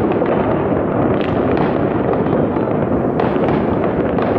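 Fireworks and firecrackers going off in many places across a city at once, heard as a dense, steady crackle of distant bangs and pops with no single burst standing out.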